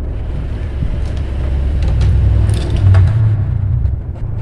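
Faint rustles and clicks of a red electrical wire being pushed through a plastic junction box and conduit, over a low rumble that swells toward the middle and eases off.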